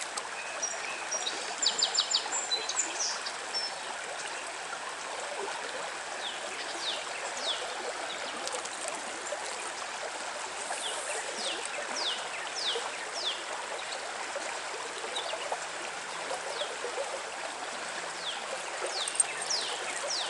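Shallow trout stream's water running and trickling steadily. Over it, songbirds call: a brief high trilling phrase about two seconds in, then runs of quick falling chirps.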